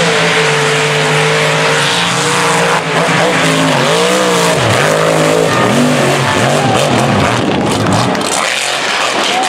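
Mega truck engines at full throttle racing down a dirt track, with a noisy hiss of spinning tyres and flung dirt over them. The engine pitch holds steady at first, then rises and dips several times in the middle of the run.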